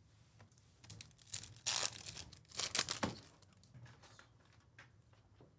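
Foil wrapper of a Topps Chrome baseball card pack being torn open and crinkled by hand, with a few quick rustles between about one and three seconds in.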